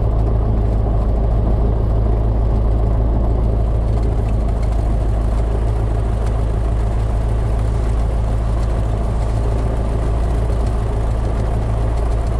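Light single-engine propeller aircraft's piston engine idling on the ground, a steady low drone that holds an even speed.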